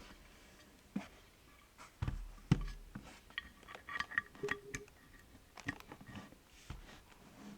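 Keystrokes on a Bakeneko 60 gasket-mount mechanical keyboard with lubed Durock POM linear switches and GMK keycaps: a slow, irregular run of separate key presses, some louder than others.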